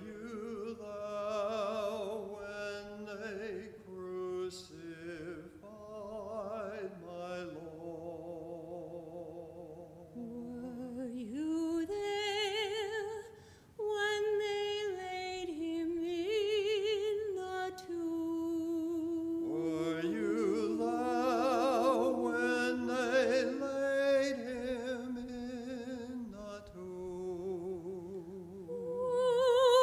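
A man and a woman singing a slow duet in harmony, holding long notes with vibrato.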